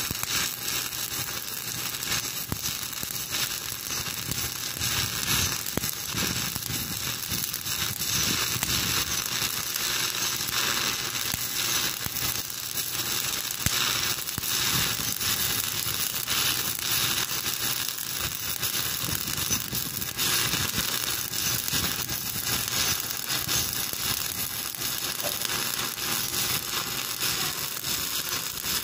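Stick welding arc crackling and sizzling steadily as the electrode burns.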